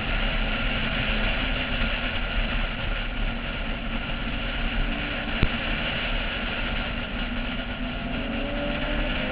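Wind rushing over a roof-mounted camera on a car at track speed, with the engine running underneath; the engine pitch starts rising near the end as the car accelerates.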